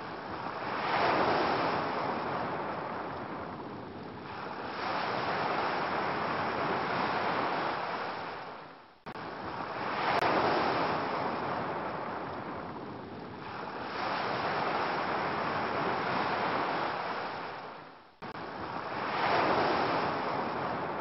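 Ocean surf recording: waves washing in and drawing back in a rising-and-falling hiss. It is looped about every nine seconds, with a brief dropout at each join.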